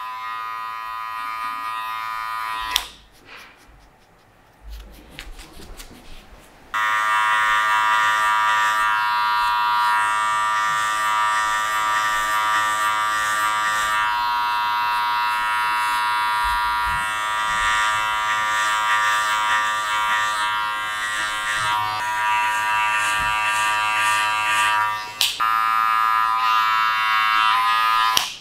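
Electric hair clippers buzzing steadily while cutting a fade. They stop about three seconds in, start again about seven seconds in, and cut off just before the end.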